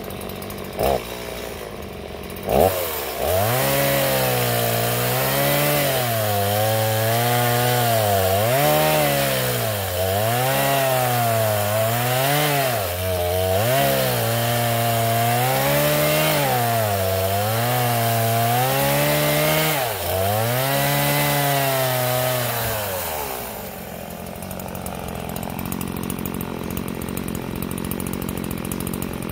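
Two-stroke Stihl chainsaw brought up to full throttle about two and a half seconds in and held there while cutting through stems, its pitch dipping and recovering every second or two as the chain bites under load. Near the end it comes off the throttle and the sound drops to a much lower level.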